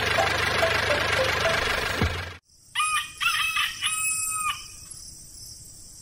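Background music with a running motor cuts off abruptly about two seconds in. Then a rooster crows once: a few short notes and a longer held final note.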